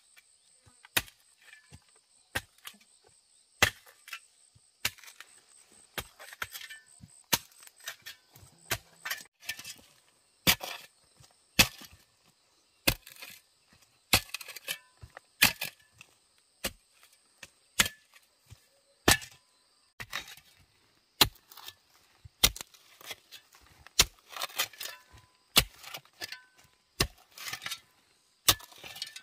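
A long-handled spade chopping down into hard clay soil, one sharp strike about every second and a quarter, with clods cracking and crumbling loose between strikes.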